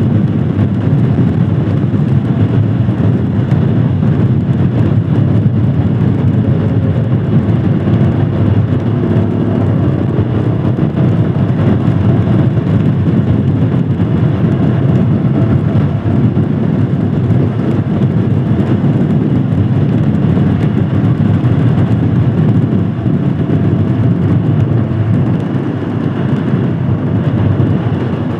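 Royal Enfield Himalayan Scram 411's single-cylinder engine running steadily under way, mixed with riding noise; it dips a little in level for a few seconds near the end.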